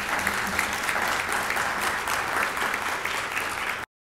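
Audience applauding: many hands clapping together, cut off suddenly near the end.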